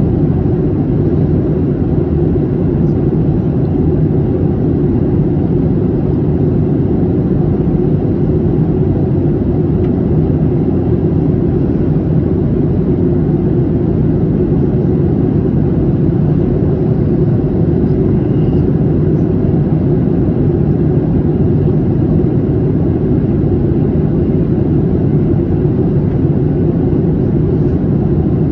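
Steady cabin noise inside a Boeing 737-800 in flight: the low drone of its CFM56 turbofan engines and rushing airflow, even and unchanging throughout, with most of the sound in the low range.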